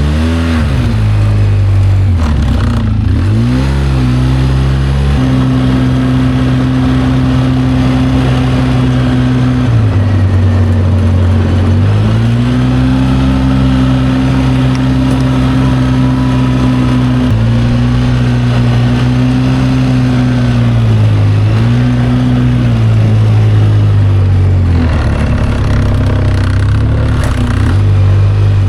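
A small engine runs steadily for the whole stretch. Its speed drops and comes back up several times as the throttle is eased off and opened again, most plainly about ten seconds in and again near the end.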